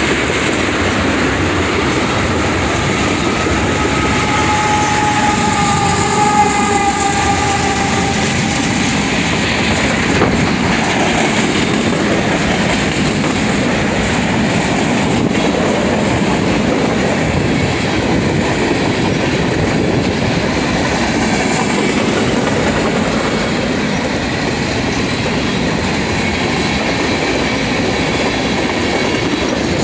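Freight cars (tank cars, centerbeam flatcars and covered hoppers) rolling steadily past, their steel wheels clacking over the rail joints in a continuous rumble. A thin, high-pitched wheel squeal rises over it for a few seconds near the start.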